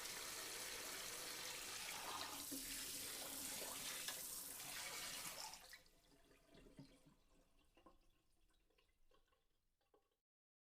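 Water running from a tap into a sink, a steady hiss that stops about five and a half seconds in, followed by faint scattered drips and small knocks fading out.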